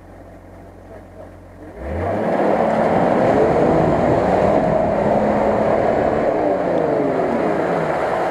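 Nissan Patrol's engine revving hard as the 4x4 drives through a muddy water-filled rut, its pitch rising and falling with the throttle. It comes in loudly about two seconds in, after a quieter low hum.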